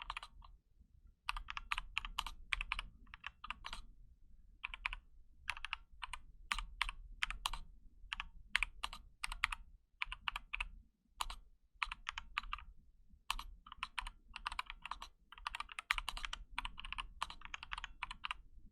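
Slow typing on a KBD75 mechanical keyboard with Novelkey Cream linear switches. The keystrokes come in short runs with brief pauses between words, starting about a second in.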